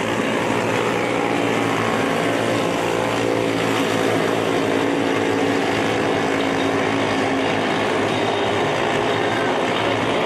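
Several small junior sprint car engines running together as the cars lap a dirt oval, a steady overlapping engine sound with no breaks or sharp revving.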